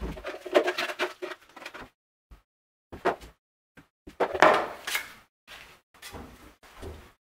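Hand work on a wooden strip: irregular scraping and rubbing with light knocks of wood, in short bursts separated by pauses. The longest and loudest scrape comes about halfway through.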